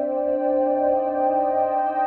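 Calm ambient background music of long held chords with no beat.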